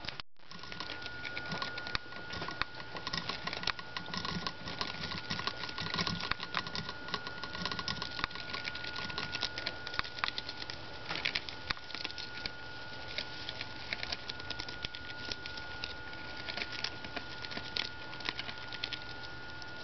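Lemmings gnawing a cabbage leaf and shuffling in wood-shaving bedding: a dense, continuous crackle of tiny clicks and rustles.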